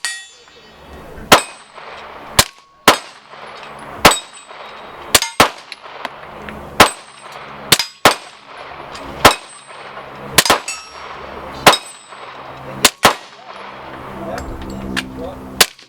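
Suppressed pistol fired about fifteen times at an uneven pace, roughly one shot a second with a few quick pairs; each shot is a sharp crack with a brief metallic ring.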